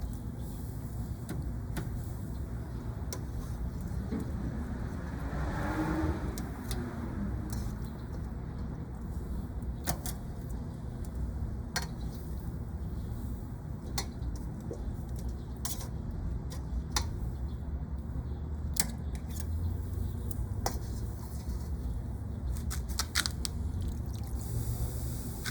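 Steady low rumble of outdoor background, with a rush of noise that swells and fades about five seconds in, and scattered sharp clicks and clinks of something being handled.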